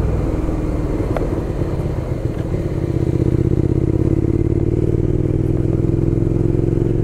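Suzuki Gladius 400's V-twin engine running steadily while the motorcycle is ridden, picking up a little in level and pitch about three seconds in.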